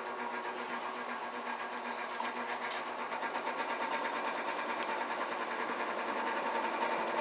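A steady, rapid mechanical rattle that grows slowly louder.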